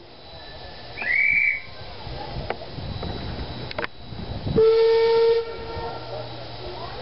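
Steam whistle of Queensland Railways C17 class locomotive No. 720 blowing once for under a second about halfway through, the loudest sound, after a short high whistle about a second in. A few sharp knocks and a steady hiss of steam run underneath.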